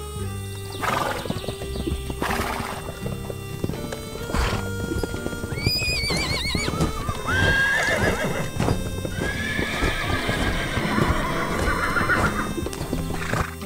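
Horses: hoofbeats clip-clopping, then whinnying, over light background music. A quavering whinny comes about six seconds in, followed by a longer neigh in the second half.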